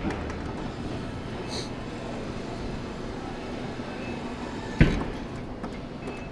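Steady arcade background din of machines and room noise, with a short high electronic beep early on and one sharp knock a little under five seconds in.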